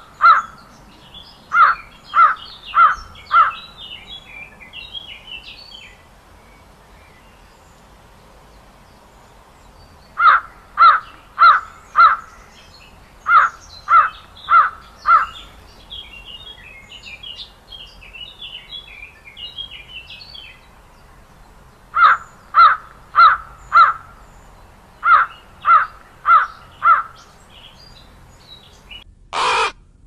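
A corvid cawing in series of four or five short, harsh caws, about two a second, with long pauses between the series. Small birds chirp faintly in the gaps, and a brief loud burst of noise comes just before the end.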